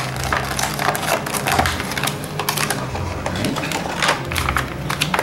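Clear plastic blister tray crinkling and clicking in irregular crackles as it is handled and pulled open to free an action figure.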